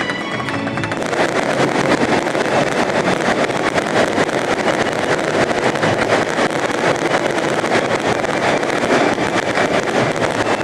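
A fireworks display sounding as a dense, continuous crackle and rumble, with many small pops packed close together.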